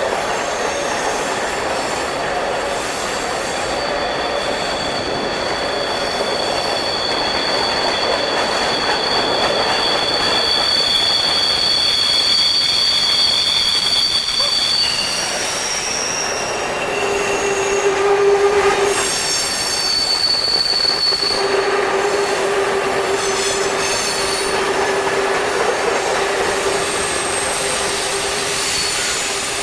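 Freight cars of a long mixed freight train rolling past, a steady rumble of steel wheels on rail with wheel squeal: two high, steady squealing tones through the first half, then a lower squeal that comes and goes in the second half.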